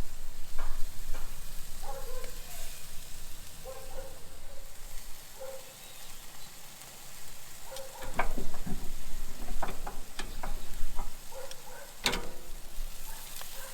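Chicken tikka pieces sizzling over hot charcoal on a grill, with juices dripping onto the coals. A run of clicks and knocks starts about eight seconds in, and the sharpest comes near the end.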